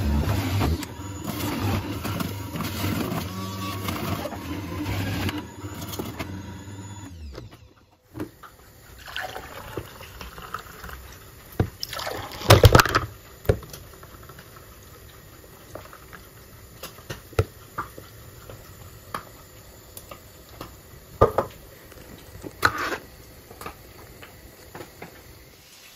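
Bosch electric juicer motor running steadily for about seven seconds as carrots and fruit are pressed through it. After a short break, fresh juice is poured into drinking glasses, with a few sharp clinks of glass.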